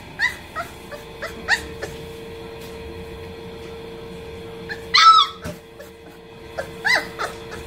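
24-day-old Cane Corso puppies yipping and whimpering: clusters of short high-pitched calls, with one longer, louder yelp about five seconds in.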